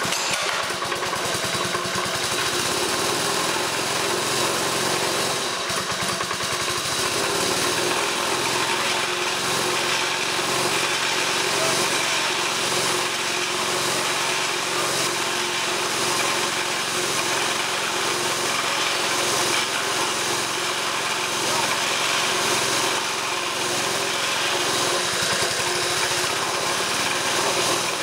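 Small Honda 5 hp single-cylinder engine catching on a pull of the starter cord and running steadily, belt-driving a salvaged refrigeration compressor that is pumping air.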